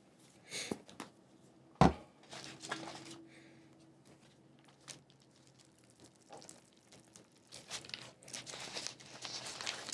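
Food packaging crinkling and tearing as it is handled, in short rustles that grow into a longer stretch near the end, with one sharp thump about two seconds in.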